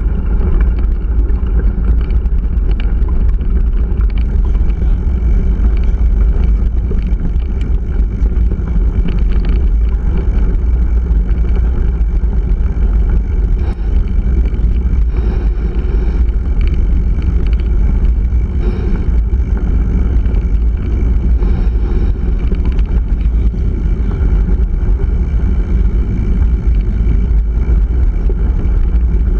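Steady wind rumble on the microphone of a bike-mounted action camera riding along a gravel track. Under it are the hiss of tyres on gravel and faint scattered rattles from the bike.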